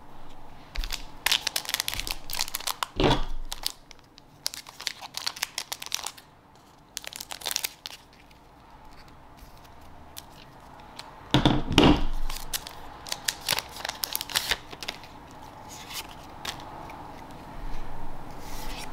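Foil trading-card booster pack wrapper crinkling as it is handled and opened, with the loudest crinkles about three seconds in and again around eleven to twelve seconds.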